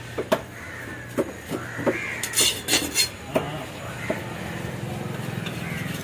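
A large steel knife chopping into a king seer fish on a wooden log block, giving a series of sharp knocks that are loudest in the first half, with crows cawing.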